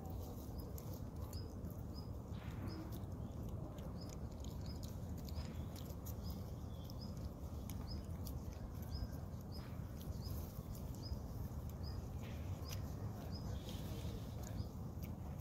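A young macaque chewing banana close by: soft, irregular wet clicks and smacks over a steady low rumble.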